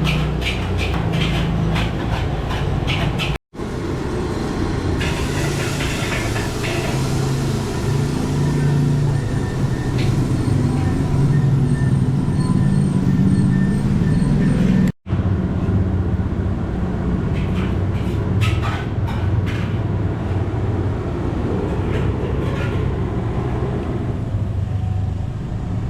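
Steady low rumble at a fried-rice street stall, with a metal spatula clinking and scraping against the wok in bursts near the start and again in the last third.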